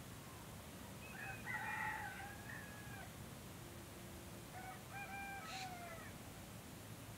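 A rooster crowing twice, faintly. Each crow lasts about two seconds: the first starts about a second in and is the louder, and the second starts about four and a half seconds in.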